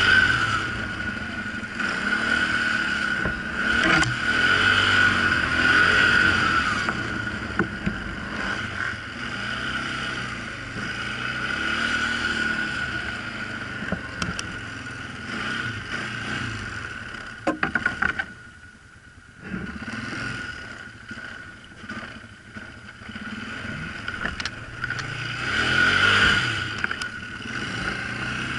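ATV engine running under changing throttle while riding, its pitch rising and falling, with a steady high whine over it. About two-thirds of the way in, the engine sound drops away almost completely for a second or so, then picks up again.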